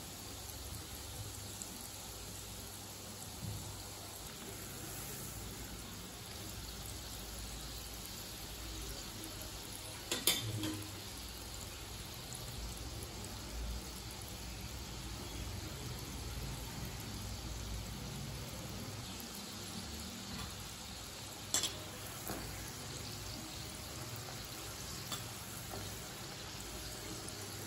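Wheat-flour gulab jamun dough balls deep-frying in oil in an iron kadai over low heat: a steady, soft sizzle and bubbling. Two brief sharp knocks cut through it, the louder one about ten seconds in.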